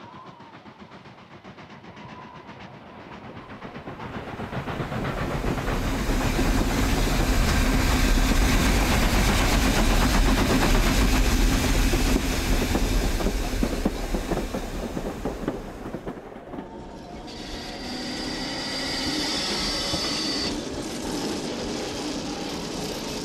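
Southern Pacific steam locomotive running hard past, its rumble and clatter building over the first few seconds, staying loud, then easing off. About two-thirds of the way in it changes abruptly to a quieter train sound with a steady high tone over it for a few seconds.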